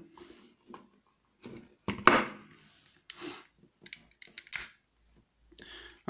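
Combination trigger lock being handled and pulled open after its code was decoded: a series of short clicks, scrapes and rattles, the loudest and longest about two seconds in.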